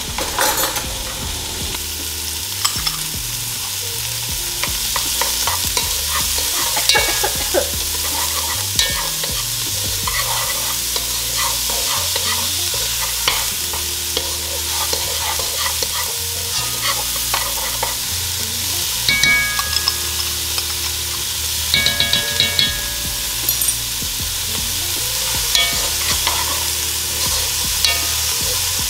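Diced yellow onion and garlic sizzling in hot olive oil in a pot, stirred steadily, with a utensil clicking against the pot now and then.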